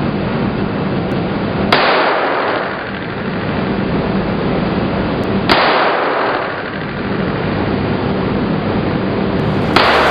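Three single gunshots about four seconds apart, each with a ringing tail, over steady background noise.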